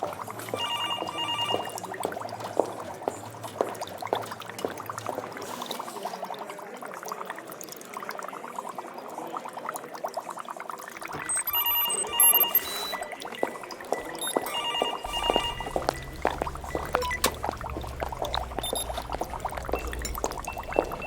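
Laboratory ambience: liquid bubbling with a dense patter of small pops, and electronic equipment beeping in short bursts three times, near the start, about halfway, and about three-quarters through. A low machine hum runs underneath and gets stronger in the later part.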